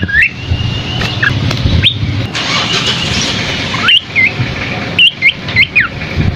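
Small songbird (the asi topi sisik of Indonesian bird-keeping) singing short, high whistled notes that slide up and down. The notes come in a quick cluster in the second half, over a steady low rumble.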